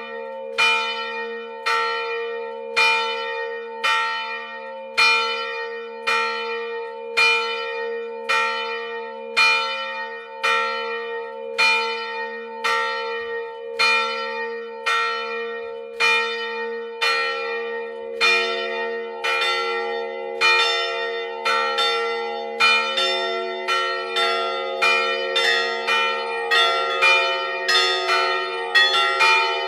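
Swinging church bells ringing in the tower. At first a single bell strikes evenly about once a second, each stroke ringing on. About halfway through a second bell joins, and its strokes fall between the first one's.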